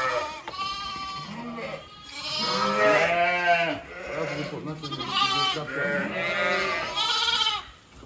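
Lambs bleating over and over, several wavering calls overlapping one another, loudest about three seconds in.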